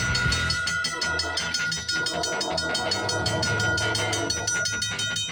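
Level-crossing warning bell ringing in quick, even strikes while a CPKC freight train approaches the crossing.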